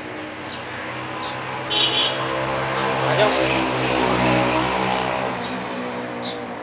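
Engine of a Generac 14 kW gas generator running, a hum of steady tones that swells through the middle and eases off near the end. Birds chirp over it.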